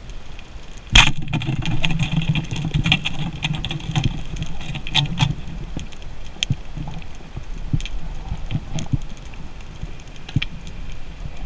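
Underwater sound: a sharp knock about a second in, then a few seconds of low mechanical-sounding hum that fades out, over steady scattered crackling clicks.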